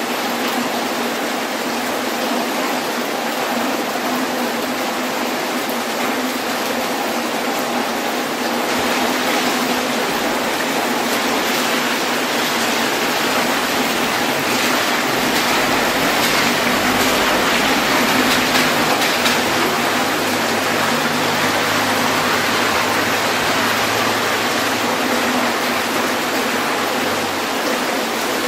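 Steady rain falling, a continuous dense hiss of drops that grows a little heavier around the middle.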